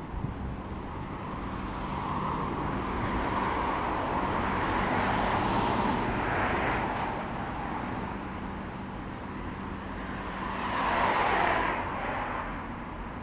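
Road traffic passing on a street: one vehicle's noise swells and fades over several seconds, then a second vehicle passes more quickly near the end.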